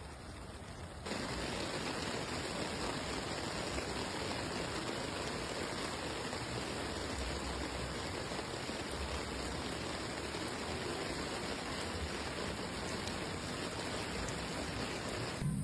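Steady rush of water, starting abruptly about a second in and cutting off just before the end.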